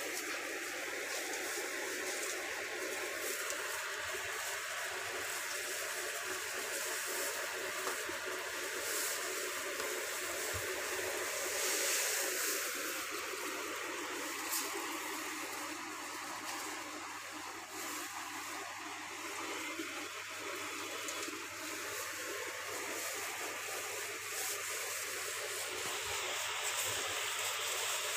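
A steady rushing noise with a faint low hum underneath.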